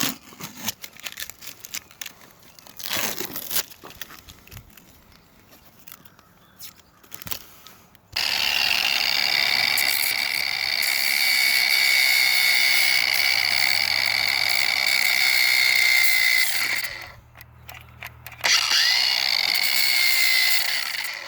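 Scattered handling knocks and clicks, then a power grinder runs steadily with a high whine for about nine seconds as it grinds out damaged fiberglass on a boat hull. It stops for a moment and runs again near the end.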